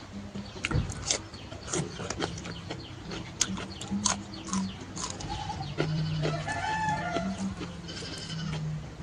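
Eating sounds: chewing and lip-smacking heard as a run of sharp wet clicks, with a short wavering pitched sound about six seconds in.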